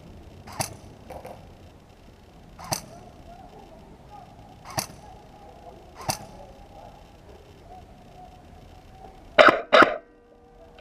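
Airsoft rifle firing single shots, each a short sharp snap: four spaced about two seconds apart, then two louder ones in quick succession near the end.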